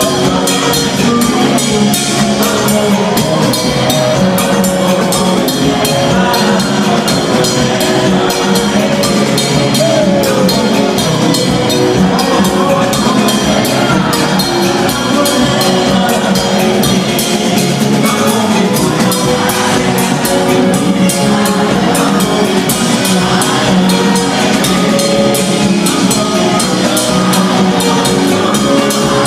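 Live gospel band playing loud, upbeat music over a PA system: a drum kit keeps a steady beat under keyboard chords.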